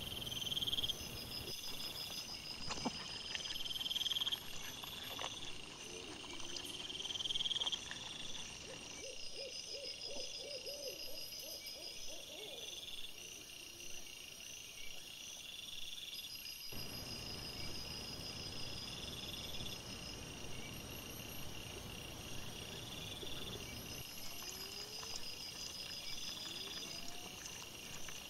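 Night insects chirping in repeated, evenly spaced trains, with a brief run of lower pulsing calls about a third of the way through and faint scattered rustles and clicks.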